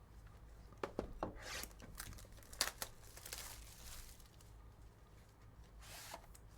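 Faint crinkling and tearing of card-pack wrapping and packaging being opened, with short rustles and clicks of cards being handled, bunched in the first half.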